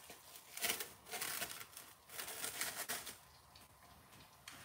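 Soft rustling and crinkling handling noises in a few short spells, with quiet gaps between.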